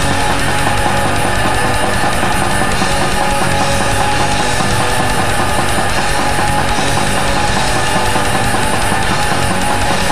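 Black metal recording: a dense wall of distorted electric guitars over fast, steady drumming on a drum kit, at a constant loud level.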